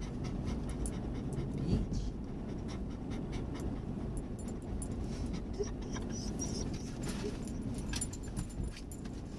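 A dog panting eagerly in the back of a car, keen to get out and run, with scattered light clicks and rustles over the car's low steady rumble.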